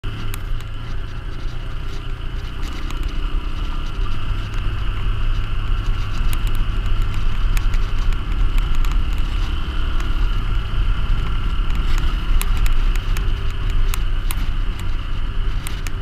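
Dual-sport motorcycle riding along at a steady pace: engine running with a steady low rumble, getting a little louder a few seconds in, and scattered sharp ticks throughout.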